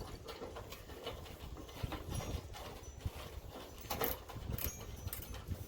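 Scattered knocks and light clatter of grill parts being handled and fitted during assembly, with a few sharper taps about four seconds in and near the end.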